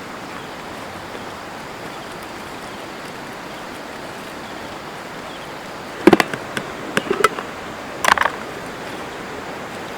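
Steady rush of a flowing river, with three short clusters of sharp knocks and clatters about six, seven and eight seconds in.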